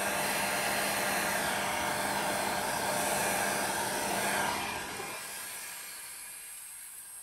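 Ozito heat gun blowing with a steady hum, then fading out over the last two or three seconds.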